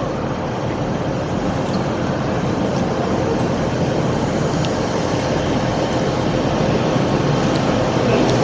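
Steady engine noise from diesel multiple units (Class 158 and 159) standing at the platform, mixed with wind buffeting the microphone, growing slightly louder.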